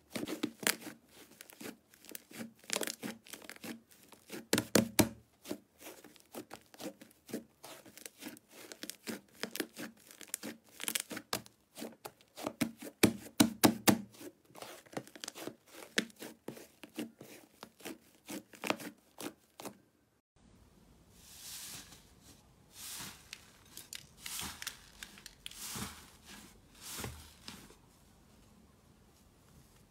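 Hands squeezing and kneading a thick, fluffy slime, giving dense, crackling pops and clicks as air pockets are pressed out. About two-thirds of the way through this changes to slower, softer tearing swishes as a slime in a glass bowl is pulled and peeled apart.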